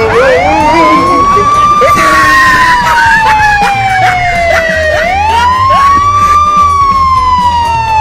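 Wailing siren for a fake police siren prank. It starts suddenly and rises over about two seconds, falls slowly, then rises again about five seconds in and begins another slow fall.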